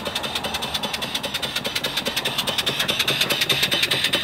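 Model steam engine (2-inch bore, 2.5-inch stroke) running on steam from a boiler, its exhaust beating evenly at about six to seven beats a second over a steady steam hiss that grows louder in the second half.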